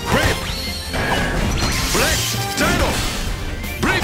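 Superhero transformation roll-call soundtrack: music with a steady beat, punctuated by crash and hit sound effects. Several sweeping swishes rise and fall in pitch, one near the start, a pair past the middle and one near the end.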